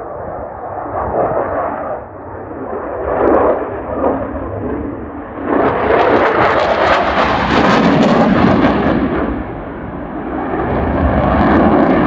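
Loud jet noise from the Eurofighter Typhoon's twin EJ200 turbofans. It swells sharply about halfway through into a harsh, crackling roar for a few seconds, eases off, then builds again near the end.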